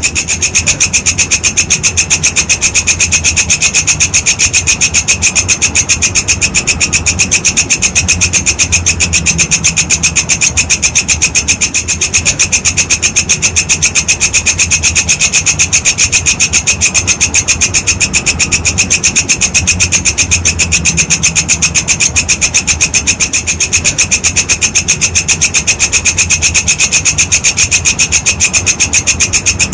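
Walang kecek grasshopper calling nonstop: a rapid, even train of rasping pulses.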